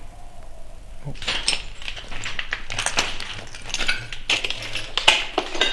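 Irregular clinks, clicks and crunches of small hard objects, with several sharp, loud clicks about five seconds in.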